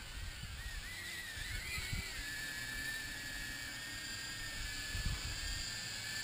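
Small 2S cinewhoop quadcopter with 1404 motors and 63 mm props flying, its motors and props giving a thin whine that wavers in pitch for the first couple of seconds, then holds steady. Low rumbling and a few soft thumps underneath.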